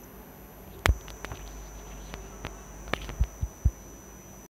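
Handling noise on a home recording: scattered clicks and low thumps over a faint steady hiss with a thin high whine. A sharp click about a second in is the loudest, and three low thumps come close together near the end.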